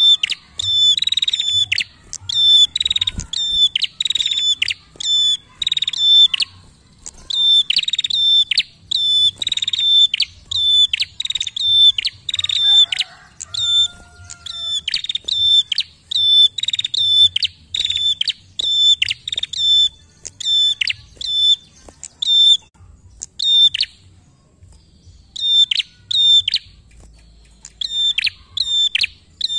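Caged prenjak singing loudly: a fast run of sharp, high repeated notes, about two a second, with a few seconds' pause partway through and again near the end.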